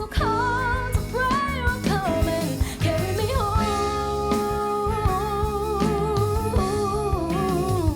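Female pop vocalist singing with band accompaniment, holding long notes from about three seconds in.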